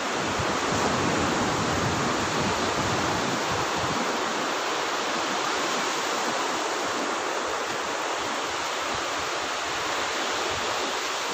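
Sea surf breaking and washing up a sandy beach: a steady rushing roar of water.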